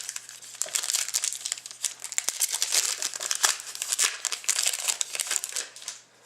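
Crinkling of a hockey card pack's wrapper as it is handled and opened, a dense crackle that keeps up for several seconds and stops just before the end.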